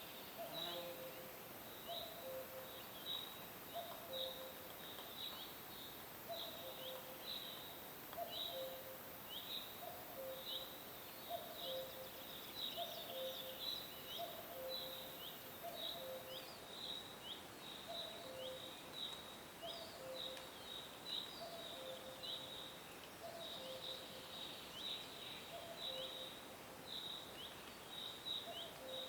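Nature soundscape of animal calls: many quick high chirps, several a second, over a lower two-note call that repeats about once a second, steady throughout.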